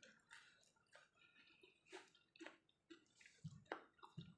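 Faint, irregular wet clicks and squishes of fingers working boiled sweet potato leaves through sambal in a clay mortar, with a couple of soft low thuds near the end.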